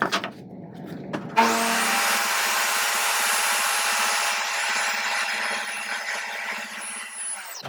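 Electric power tool starting up about a second and a half in, its high whine rising as it comes up to speed, then running steadily on wood before winding down near the end.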